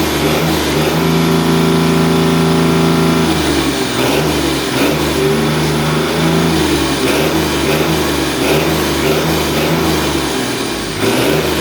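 Freshly rebuilt Mercedes-Benz OM366LA turbocharged, intercooled six-cylinder diesel engine running on a test bench. Its note holds very even for the first few seconds, then varies slightly in pitch.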